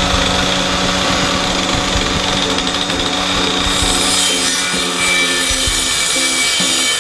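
Mini angle grinder converted into a homemade bench saw, cutting wood with a steady, loud noise. Background music plays over it.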